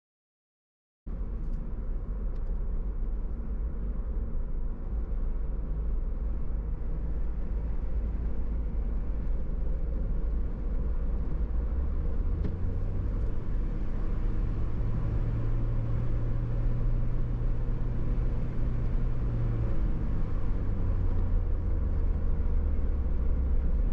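Car driving along a highway with a steady low rumble of road and engine noise, cutting in after about a second of silence. A low engine drone swells in the middle and eases off near the end.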